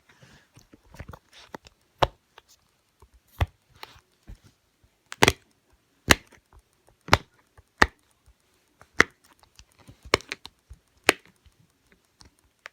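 Dimple fidget toy being pressed, its silicone bubbles popping with sharp clicks about once a second, roughly nine in all.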